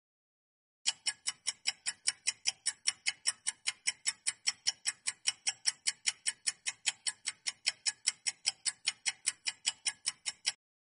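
Countdown-timer clock-ticking sound effect: sharp, evenly spaced ticks, about four a second, starting about a second in and stopping shortly before the end.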